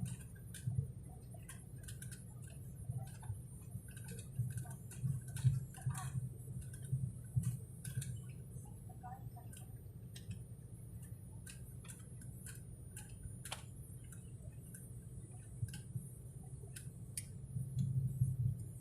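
Steady low drone of an airliner cabin, with scattered irregular clicks and ticks over it.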